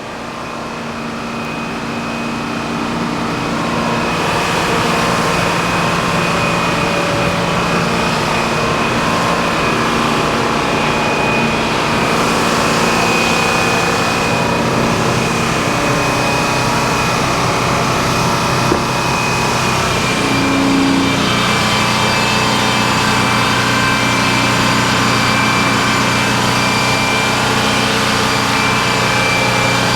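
A sawmill running and cutting a log: a steady engine with a high, steady whine on top. It builds over the first few seconds, then holds steady.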